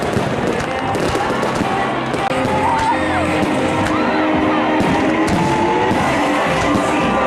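Fireworks going off, with sharp bangs and crackles, over loud music and crowd noise.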